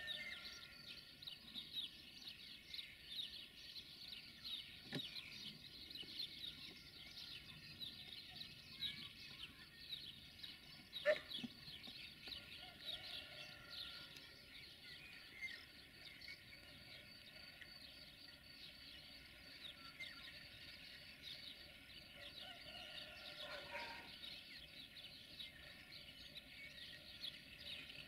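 Small birds chirping and singing faintly over quiet outdoor ambience. A single sharp knock stands out about eleven seconds in.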